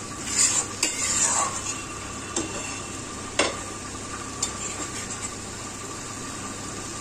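Metal spatula scraping and knocking against a kadhai as thick potato-and-parwal masala is stirred, over a steady sizzle of the masala frying in oil. The strokes come in a cluster about half a second in, then singly every second or so, and stop after about five seconds, leaving the sizzle.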